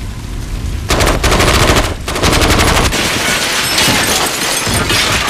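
Automatic gunfire, starting about a second in and going on in long rapid bursts with brief breaks between them.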